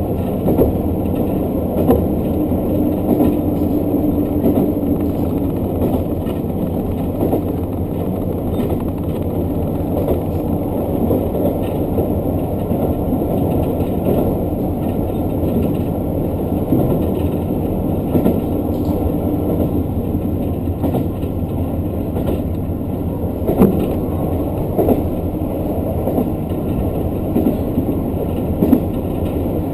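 Diesel local train running, with a steady engine and rolling rumble and occasional clicks of wheels over the rails.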